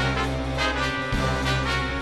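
Background music with sustained notes over a bass line that changes note about once a second.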